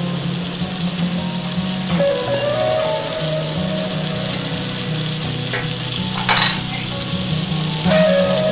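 Mutton paya (goat trotter pieces) sizzling steadily in hot oil in an aluminium pressure cooker, with one sharp clink about six seconds in.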